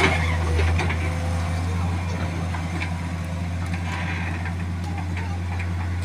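Wheeled excavator's diesel engine running with a steady low drone as the machine lifts and swings its boom and bucket.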